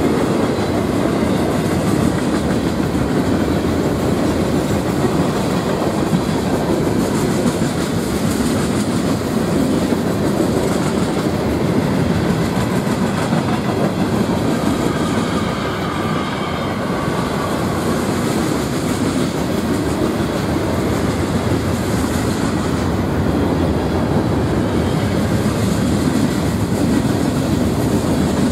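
Boxcars of a CSX freight train rolling past, their steel wheels running steadily on the rails.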